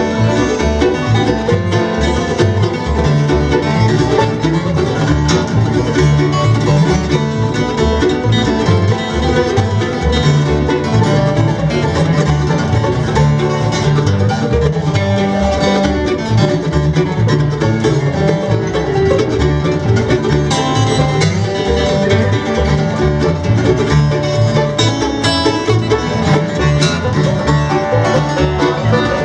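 Live acoustic bluegrass band playing an instrumental, with mandolin and acoustic guitars picking and strumming a steady tune.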